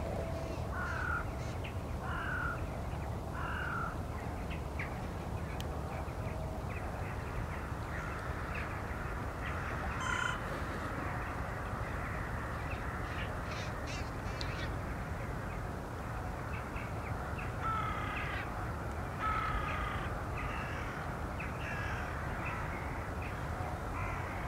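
A flock of crows cawing, with calls coming in short bouts of a few caws, over a steady low rumble.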